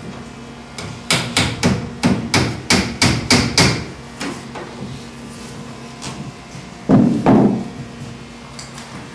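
Hammer tapping a thin wooden spiling batten onto the frames of a carvel-planked boat under construction: a quick run of about ten light blows, roughly four a second, then two heavier, duller knocks a few seconds later.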